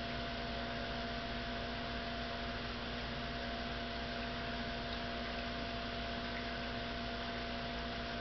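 Steady hum with an even hiss from running aquarium equipment, such as an air pump driving the bubbling sponge filter.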